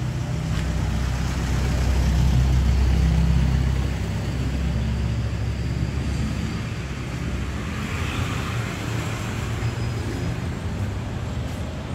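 Street traffic: a steady low rumble of motor vehicles passing, swelling loudest a couple of seconds in.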